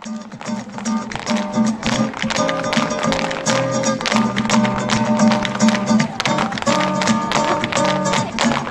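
Flamenco guitar music with rapid, sharp percussive taps running through it.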